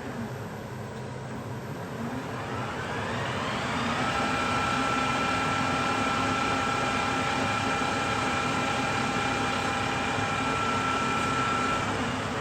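HUVEMA lathe spindle and drive running up to speed. A whine rises about two seconds in, holds steady, then starts to drop away near the end.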